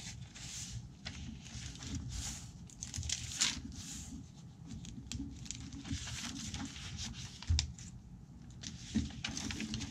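Paper and fabric pages of a handmade, stitched junk journal being turned by hand: a run of soft rustles and crinkles, with a few sharper page flips standing out.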